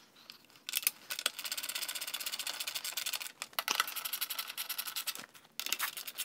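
Ratcheting screwdriver clicking rapidly as it drives the bolts of an engine's recoil starter cover, in two long runs with a few separate metal clacks between them.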